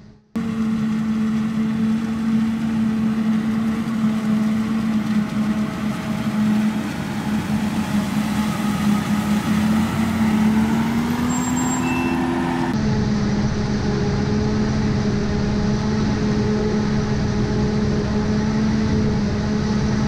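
Self-propelled forage harvester chopping corn for silage, with a dump truck running alongside: a loud, steady machine drone with a humming tone. The sound shifts abruptly about two-thirds of the way through.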